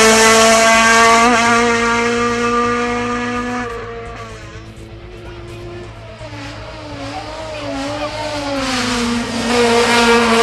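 Toyota Starlet rally car's engine held at high revs, loud and steady, then fading away about four seconds in. A quieter, wavering engine note follows and builds back to loud near the end as the car comes through again.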